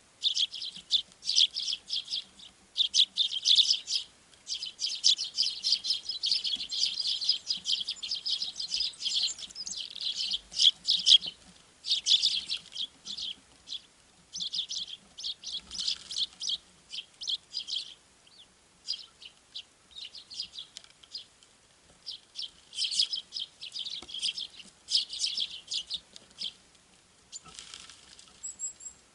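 Small songbirds chirping at a winter feeder: many short high calls, coming in dense bursts with brief pauses and thinning out near the end.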